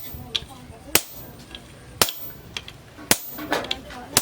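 Blacksmith's hammer striking steel on an anvil: hard, sharp blows about once a second, with lighter taps in between.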